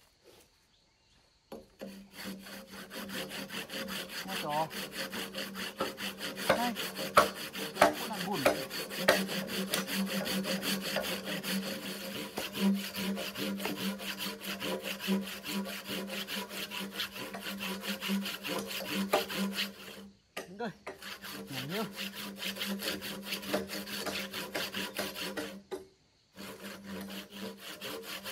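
A saw cutting through wood in steady, rapid strokes. It starts about a second and a half in and stops briefly twice, near 20 s and again near 26 s.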